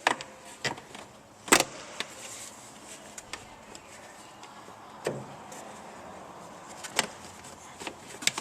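Scattered clicks and knocks as a car's replacement blower motor is worked and clipped into place under the cowl, the loudest knock about a second and a half in.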